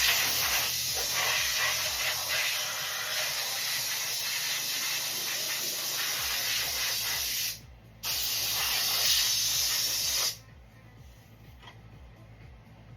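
Pressurized spray hissing in two long bursts: the first runs for about seven and a half seconds, then after a brief break a second lasts about two seconds. It is the kind used to clean down a dirty engine.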